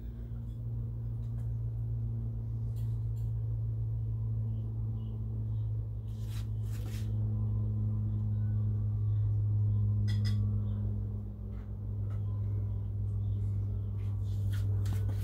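A steady low hum with a fainter steady tone above it, and a few soft clicks scattered through.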